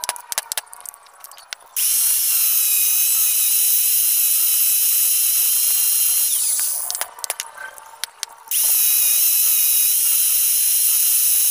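Electric angle grinder with a cutting disc grinding the heads off the steel rivets that hold the clutch damper plate on a Yamaha Sniper 150 clutch housing, a steady high-pitched whine with grinding hiss. It runs up about two seconds in, winds down near seven seconds, and starts again a second and a half later; between the runs, light sharp metal clicks of a screwdriver on the housing.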